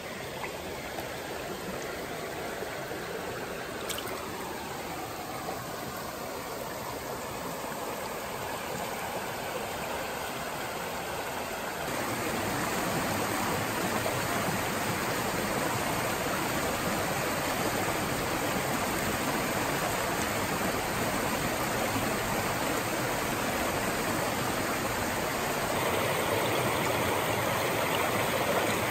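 Small creek running over rocks and little cascades: a steady rush of flowing water that gets louder about twelve seconds in.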